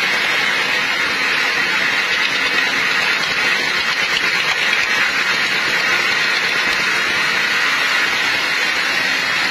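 Sawmill machinery running steadily: a constant, even mechanical whir and hiss with a faint low hum underneath.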